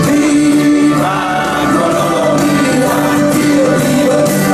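Music with singing, loud and steady.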